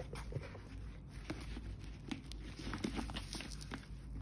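A black leather flap handbag being handled: scattered soft taps, clicks and rustles as hands touch it and lift it by its tissue-wrapped handle.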